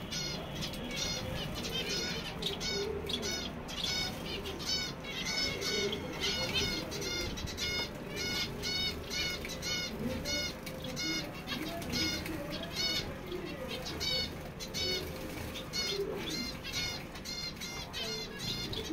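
A flock of pet finches, zebra and Gouldian finches among them, calling non-stop in short repeated chirps, two or three a second, with wings fluttering as birds land and shuffle on the feeding plate.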